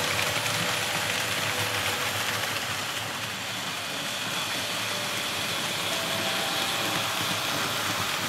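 Märklin H0 model freight train of hopper wagons running along the track: a steady running noise of small wheels on the rails and the locomotive's motor.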